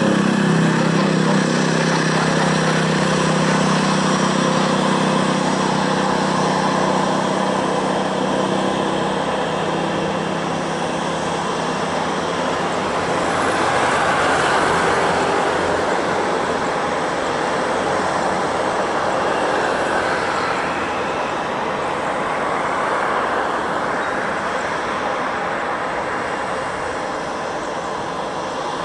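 Boeing 737-800's twin CFM56-7B jet engines at takeoff power, a loud steady jet roar. A low hum under it fades out about a third of the way in, and the roar slowly eases toward the end.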